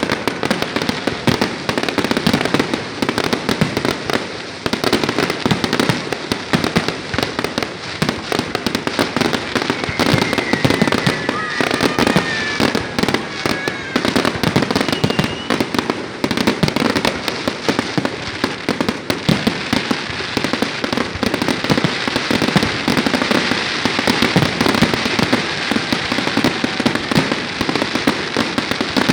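Fireworks display: a dense, continuous barrage of bangs and crackling shell bursts. A few faint gliding whistles come through about ten seconds in.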